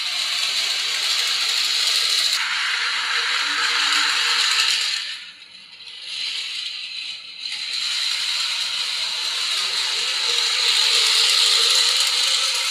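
A miniature model train runs along its track with a steady mechanical rattle. The rattle falls away for a couple of seconds about halfway through, then starts again.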